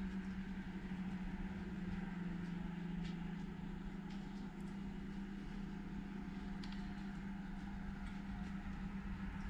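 Steady low machine hum with an even hiss underneath and a few faint ticks.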